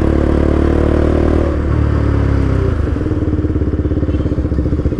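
KTM RC 200's single-cylinder engine heard from the saddle as the bike slows. Its steady note falls in pitch, and about two and a half seconds in it turns to a rapid low pulsing as the revs drop away. The rider says the freshly serviced engine is still misfiring slightly.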